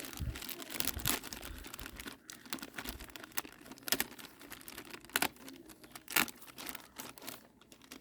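Sealed plastic bag around a woofer being torn open and crinkled by hand: irregular rustling with a few sharp crackles.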